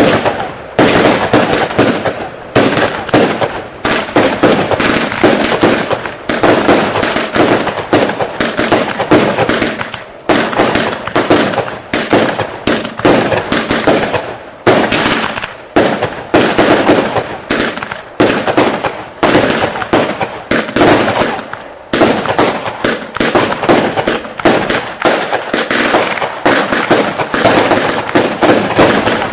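Jasper 'Gejzer' JW 109 multi-shot fireworks cake firing a rapid, continuous volley of shots and bursts, several a second, with only brief lulls.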